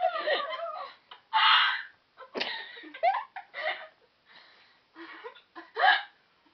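A person's high, squeaky hiccups, several in a row, each a sudden yelp with a quick pitch glide, mixed with giggling and breathy laughter. The loudest hiccup comes near the end.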